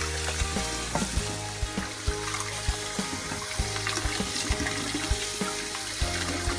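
Tap water splashes steadily into a stainless steel bowl while hands scrub peeled potatoes and carrots in it, with frequent light knocks of the vegetables against the bowl.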